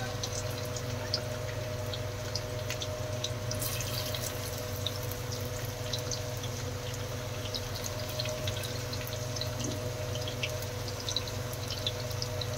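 Chopped garlic frying in hot oil with cumin and whole spices in a kadhai: a steady sizzle with many small scattered crackles and pops.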